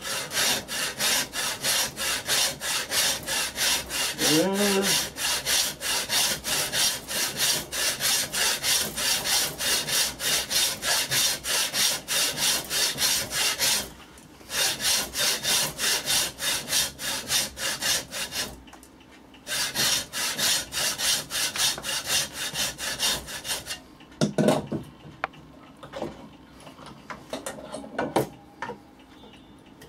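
Chinese wooden frame saw cutting through a hardwood block in quick, even push-pull strokes, two or three a second, with two short pauses. The sawing stops a few seconds before the end, leaving only a few light knocks from handling the wood.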